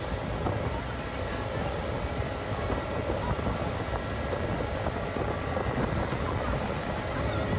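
A boat's engine running steadily, with wind and water noise.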